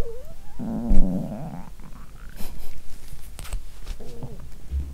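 Human stomach and intestines gurgling, busy digesting a large amount of probiotic lactic-acid drink. A long warbling gurgle comes about half a second in, then a short rising squeak and a smaller gurgle near the end. A loud low thump about a second in and a few sharp clicks lie among the gurgles.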